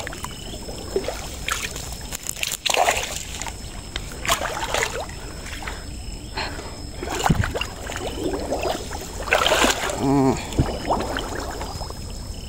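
Water sloshing and splashing around a small boat in irregular bursts as it works along a gill net in the water, with some trickling and dripping.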